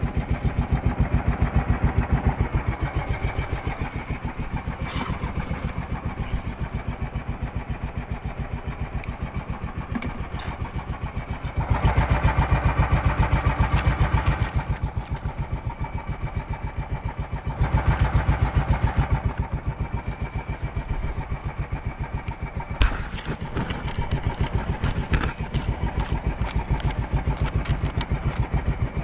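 Small engine of an outrigger fishing boat running under way with a fast, even beat, growing louder twice for a couple of seconds as it is throttled up. A single sharp knock about three-quarters through.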